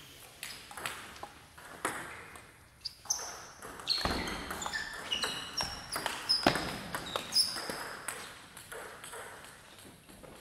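Table tennis ball being hit back and forth in a rally: quick sharp clicks of the plastic ball off the paddles and the table, with short high pings, busiest from about four to seven and a half seconds in.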